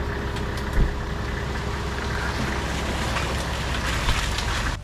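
An off-road vehicle's engine running steadily close by, with two brief thumps, one about a second in and one near the end.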